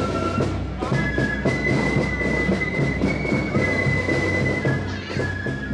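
Marching band playing a tune on wind instruments over a steady beat, with long held high notes.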